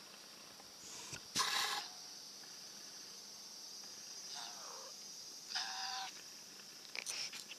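A crow cawing twice, a harsh call about half a second long a little over a second in and again near six seconds, with a fainter falling call between them, over the steady high drone of cicadas. A few short clicks near the end.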